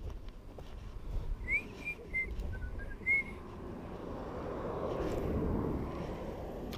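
Several short whistled notes, one sliding upward, followed by a swelling rush of noise that peaks about five seconds in.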